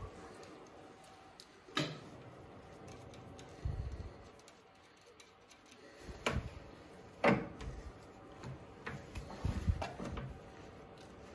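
Metal clicks and clunks from the speed-change lever on a Boxford AUD lathe's headstock being worked by hand with the spindle stopped, as the gears are shifted. Several separate knocks a second or two apart, the loudest about seven seconds in.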